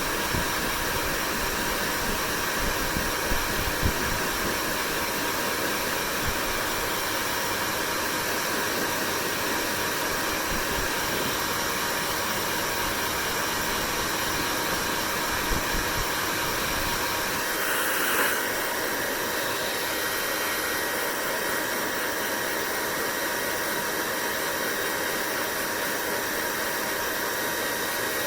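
Hair dryer running steadily: an even rush of blown air with a faint steady whine. There is some low buffeting during the first half.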